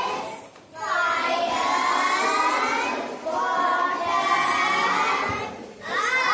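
A group of children singing together, with two short breaks between phrases, one about half a second in and one near the end.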